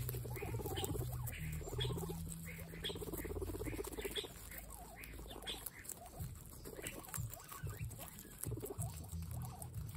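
Several guinea pigs chewing sliced carrots: a steady patter of small crunches and nibbles.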